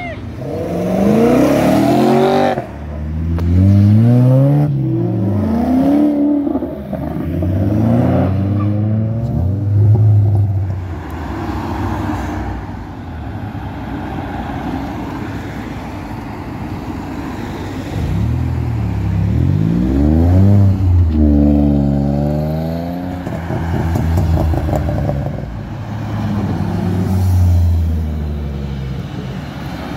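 Cars pulling away one after another, their engines revving up and dropping in pitch through gear changes as each passes, with a quieter lull in the middle.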